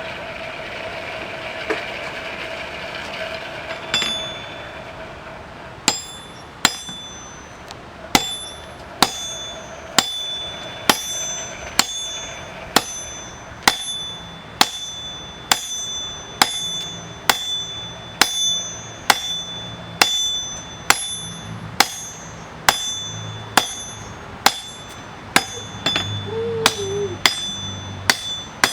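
Hammer blows on hot steel at an anvil, about one strike a second, each ringing out with a clear bell-like anvil tone. Before the hammering starts, about four seconds in, there is a steady rushing noise.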